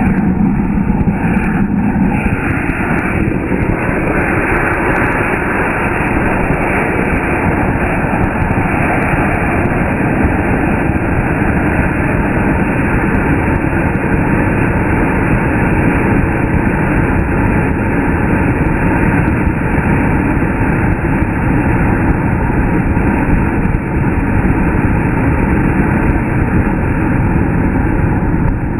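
Diwali anar (flower-pot firework) burning, its jet of sparks and flame making a loud, steady rushing hiss.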